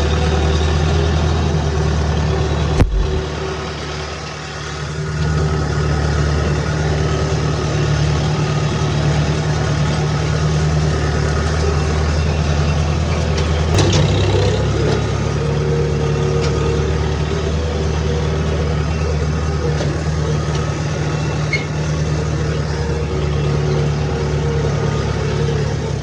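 A motor vehicle's engine running steadily at low revs, with a sharp knock about three seconds in and another about fourteen seconds in.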